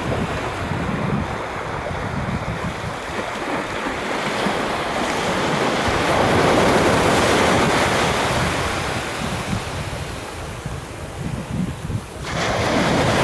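Small waves washing up and running back over a sandy beach, the surf swelling loudest midway, with wind buffeting the microphone underneath. The sound drops away abruptly about twelve seconds in, then comes back.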